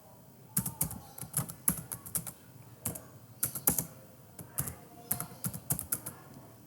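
Computer keyboard being typed on, irregular keystrokes at an uneven pace.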